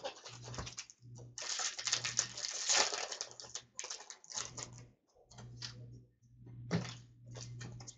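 Trading cards and their packs being handled, rustling and clicking lightly in irregular bursts, with brief pauses.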